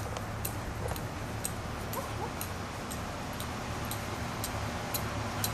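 A dog giving a couple of short, faint whines over a steady low hum, with a scattering of light clicks.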